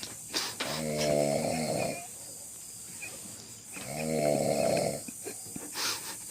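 A man snoring in his sleep: two long, drawn-out snores about three seconds apart, each lasting just over a second.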